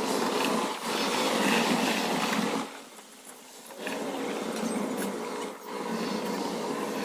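Backpack leaf blower running steadily. It drops away for about a second near three seconds in, picks up again, then dips briefly once more just before the end.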